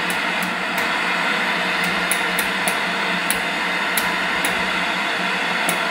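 Philco Ford B268 television's speaker giving out steady loud static hiss from an untuned signal, over a steady low hum, with scattered sharp clicks.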